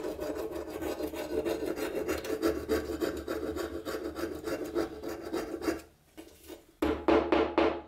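A small metal scraping tool rasping flaky rust off a steel machete blade in quick, repeated strokes. The scraping stops for about a second near six seconds in, then starts again louder.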